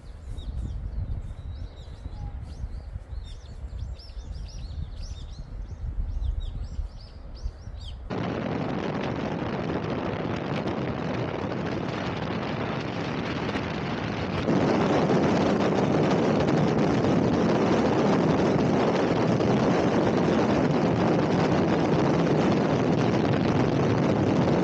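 Small birds chirping over a low, uneven wind rumble on the microphone. About eight seconds in this cuts to a steady rush of wind and tyre noise from a camera mounted on the outside of a moving car, which turns louder about six seconds later.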